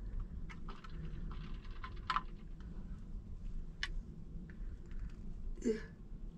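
Light clicks and taps of kitchen utensils against containers as soft coconut oil is scooped out and weighed, with a short squeak near the end.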